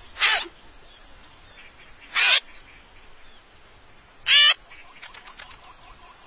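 Three short, warbling squawks about two seconds apart from plump animated baby birds begging in a nest, over faint background bird chirps.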